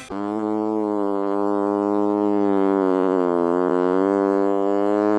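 One long held note with a buzzy, overtone-rich tone, steady in pitch apart from a slight sag and recovery about three seconds in.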